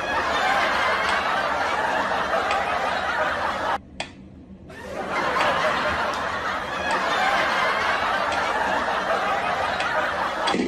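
Laughter from many people, a dense steady stretch that breaks off for about a second around four seconds in and then resumes.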